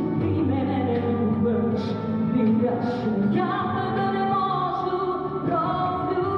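Song music: a melody in long held notes over instrumental backing, with singing.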